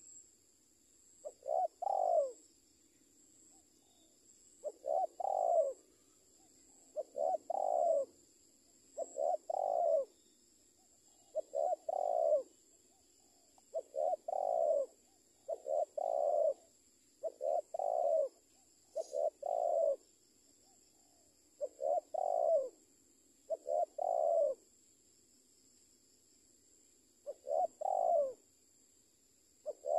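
A spotted dove cooing its song over and over: each phrase is two quick notes and a longer one, repeated about every two seconds, with one longer pause near the end.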